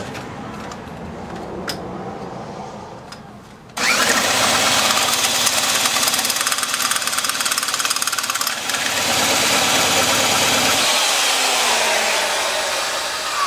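Johnson 15 hp two-cylinder two-stroke outboard being spun over by an electric drill on its flywheel nut, its recoil starter removed. About four seconds in the sound suddenly gets much louder as the motor runs for around seven seconds, then it winds down and fades near the end.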